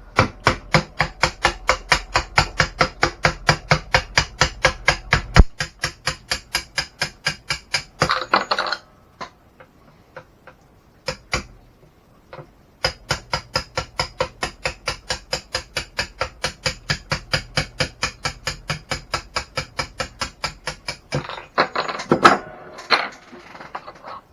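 Small hammer tapping rapidly and evenly, about five taps a second, in two long runs with a pause between, on an RC truck part that is stuck fast.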